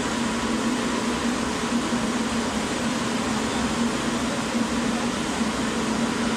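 Powder coating spray booth in operation: a steady rush of air from the booth's extraction and the compressed-air powder spray guns, over a constant hum.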